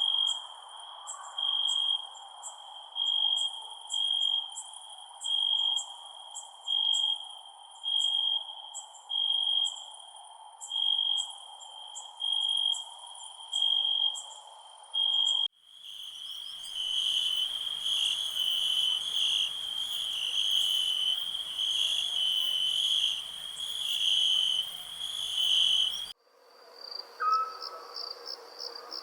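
Night insects, crickets, chirping. A regular chirp comes about once a second over a steady lower drone. About halfway through the sound changes abruptly to denser, overlapping chirping, and near the end it changes again to a higher, faster pulsing, as if separate recordings were joined.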